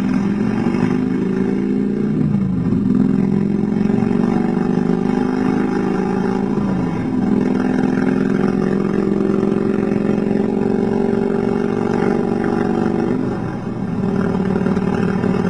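Motorcycle engine pulling under acceleration. Its pitch climbs slowly and drops sharply three times, as on upshifts through the gears.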